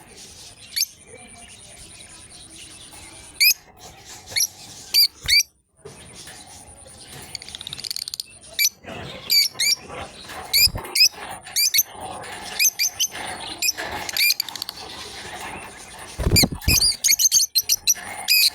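Lovebirds chirping: short, sharp chirps, scattered at first and coming thick and fast near the end.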